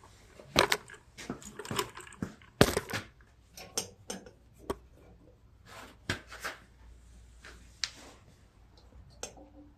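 Irregular metal clinks and knocks of a drive-belt guide bracket and its bolt being worked into place on a riding mower's frame. The loudest knocks come about half a second and two and a half seconds in.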